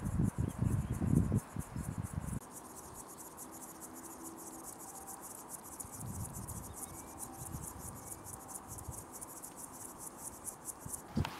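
Insects stridulating: a high, rapid, evenly pulsing chirp that stops near the end. A low rumbling noise sits under it for the first two seconds.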